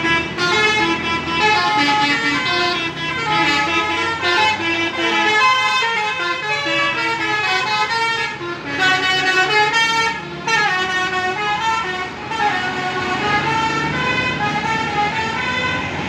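Tour bus "telolet basuri" multi-tone horn playing a melody, its notes stepping up and down almost without a break, with short pauses about halfway through.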